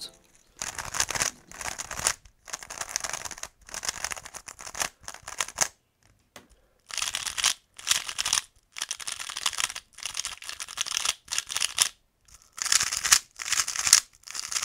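Three magnetic 3x3 speedcubes, a GAN 356 M, a Valk 3 M and a MoYu Weilong WRM, turned quickly one after another: fast runs of light plastic clicking and clacking as the layers snap into place, broken by short pauses.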